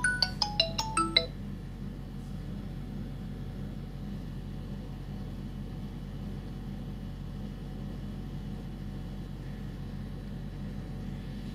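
A phone ringtone, a quick melody of bright marimba-like notes, cut off suddenly about a second in. A steady low hum follows.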